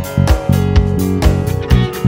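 Band recording of a rock song in which a five-string Mayones Comodous bass guitar, played through an Ampeg SVT-4 Pro amp and SVT-410HE cabinet, plays held low notes under regular drum hits and guitar.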